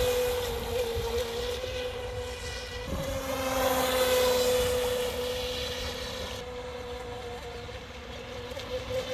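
Pro Boat Stealthwake RC boat's brushless electric motor and wire-drive propeller whining steadily at speed on the water. It swells loudest about four seconds in, then fades as the boat runs farther off.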